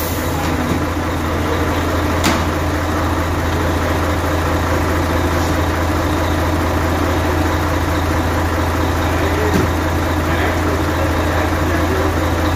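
Heavy truck diesel engine idling steadily, with a few light metallic clicks from a socket wrench on the brake caliper.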